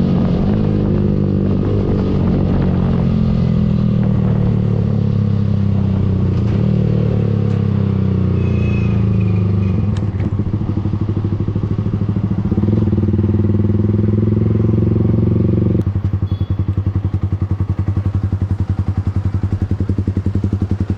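Yamaha R15 V3 motorcycle engine with an aftermarket exhaust, running at fairly steady revs and getting louder about two-thirds of the way through. It then drops abruptly to a lower, evenly pulsing idle.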